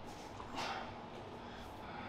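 Faint room background with one short, soft breath-like exhale about half a second in.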